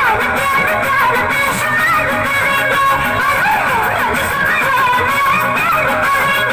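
Stage-show band music in an instrumental passage: a lead melody with bending, sliding notes, played on electric guitar over the band's accompaniment.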